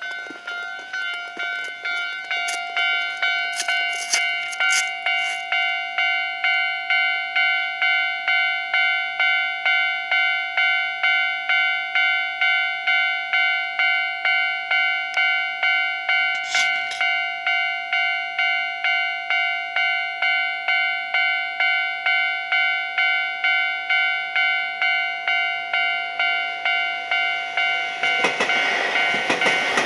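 Japanese level-crossing warning bell ringing a steady electronic ding, about one and a half strikes a second. Near the end a train's wheel noise rushes in over it as the train reaches the crossing.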